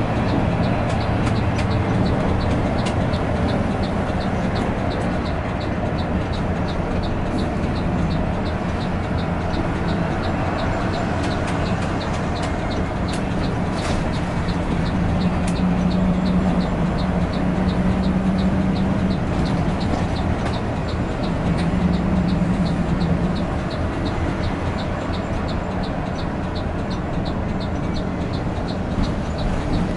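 Steady drone of a coach on the move, heard from inside: engine hum and road rumble that swell and ease a few times, with a light regular ticking throughout.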